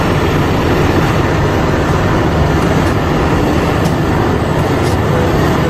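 Steady, loud heavy-machine engine sound for a bulldozer, a dense noisy rumble that runs without a break.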